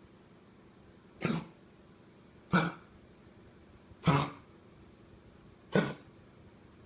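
Four short coughs, one about every second and a half.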